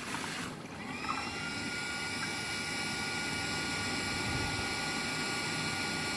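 Smart toilet's warm-air dryer running: a steady rush of air, with the fan motor's high whine rising and settling into a steady pitch about a second in as it spins up.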